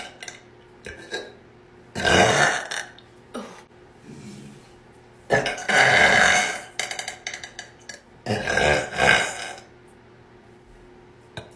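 A woman burping loudly three times, long drawn-out burps a few seconds apart, the middle one the longest.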